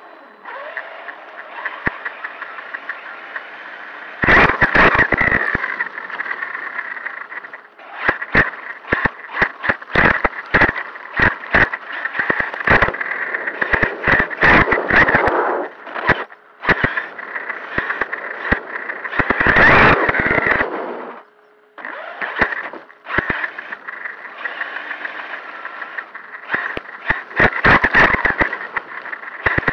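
Traxxas Sledge RC monster truck heard from on board while driving over grass and pavement: its brushless motor and drivetrain whine with a steady high tone, broken by many sharp knocks and rattles as the chassis bounces. The sound drops away briefly a couple of times when the truck slows.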